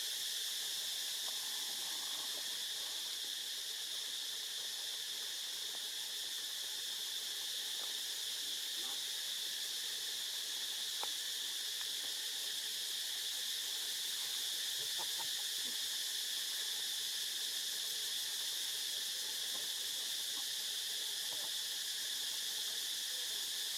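Steady, high-pitched insect chorus, with a few faint short chirps over it.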